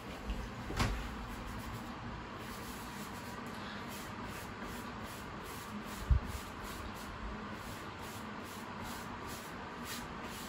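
Steady room hiss with a couple of dull knocks from a flip chart on its easel being drawn on with a marker, the louder thump about six seconds in.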